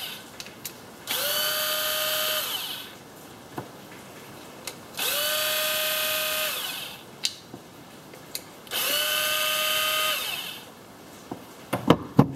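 Cordless drill/driver backing screws out of a plastic servo housing: three runs of about two seconds each, the motor whine spinning up and winding down each time, with small clicks in the pauses. Near the end a few sharp clicks or knocks.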